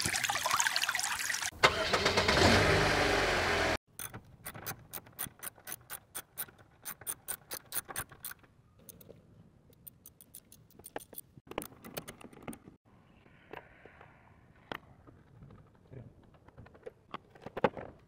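Loud rushing of coolant leaking from a cracked radiator, cutting off suddenly about four seconds in. Then quick metallic clicking from a ratchet wrench working bolts on the radiator, coming in dense runs at first and sparser later.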